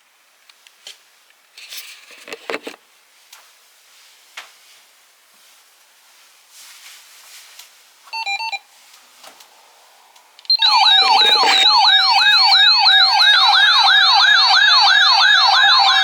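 Loud electronic emergency alert tone starting suddenly about ten and a half seconds in: a siren-like warble, its pitch sweeping up and down about four times a second. Before it, faint clicks and a pair of short beeps.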